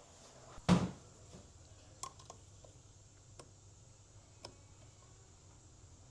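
Metal transmission parts being handled at a press: one heavy knock, then a few light, sparse metallic clicks.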